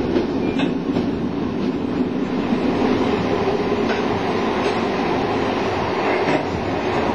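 Moving train heard from inside a passenger coach: a steady rumble of wheels on the rails, with a few faint clicks.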